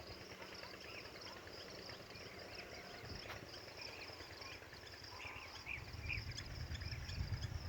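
Outdoor rural ambience: insects chirring steadily in a high, fast-pulsing drone, with small birds giving short chirps, most of them about five to six seconds in. A low rumble builds near the end.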